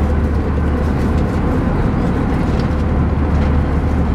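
Steady cabin noise of an Airbus A320 in flight: a constant low drone of engines and airflow with a steady higher hum above it.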